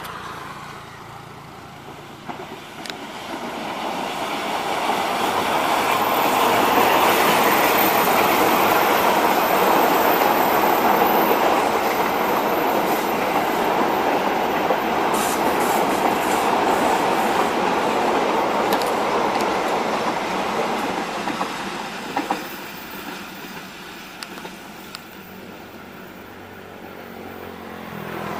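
Passenger train hauled by a diesel-electric locomotive passing: engine rumble and wheels on rail build up over a few seconds, stay steady and loud for about a quarter of a minute, then fade as the coaches move away.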